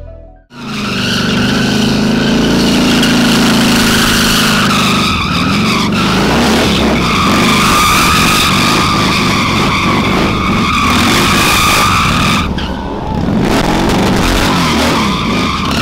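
Motorcycle burnout: the rear tyre spins against the pavement with a steady squeal over the engine held at high revs. It cuts in suddenly about half a second in and dips briefly near the end.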